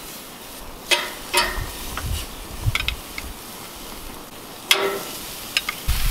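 Short ribs sizzling on a hot gas grill, with a few sharp metal clinks against the grill grates, the loudest about a second in and near the five-second mark.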